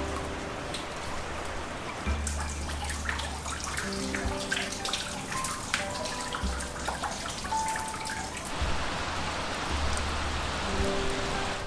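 Glacial meltwater dripping off ice and splashing into a pool, a quick patter of drips that is thickest in the middle, over a low wash of running water. Background music with sustained bass notes plays underneath.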